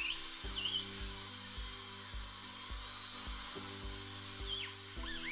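High-speed dental handpiece with a fine flame-tip diamond bur carving occlusal grooves into a composite filling, its high whine gliding up and down in pitch as it speeds up and slows, loudest about three and a half seconds in. Background music with a steady beat plays underneath.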